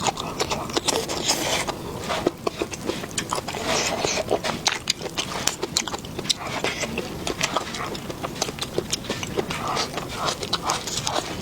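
Close-up eating sounds: wet chewing and biting, with frequent short sharp clicks and smacks.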